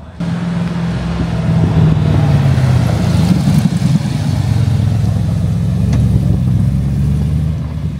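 Engine of an AC Cobra replica roadster rumbling as the car drives slowly past and away, the note swelling a little a couple of seconds in.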